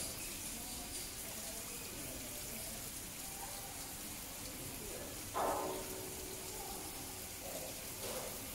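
Steady rush of running water, with one short pitched call about five and a half seconds in, the loudest moment.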